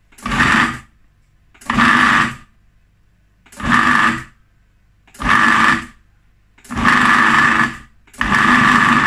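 Food processor pulsed six times in short bursts of about half a second to a second each, its motor whirring up and its blade chopping cooked soybeans into a rice mixture, with quiet gaps between pulses.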